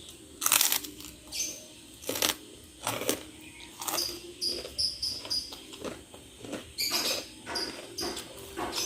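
Eating bakso meatball soup from a bowl with a spoon: a string of short clinks, knocks and scrapes of the spoon in the bowl, some with brief high squeaks, mixed with close mouth sounds of eating.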